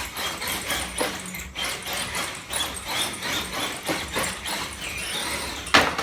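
Two Axial SCX10 RC crawlers pulling against each other in a tug of war: brushed electric motors straining and tyres scrabbling and slipping in irregular bursts, with a sharp knock shortly before the end.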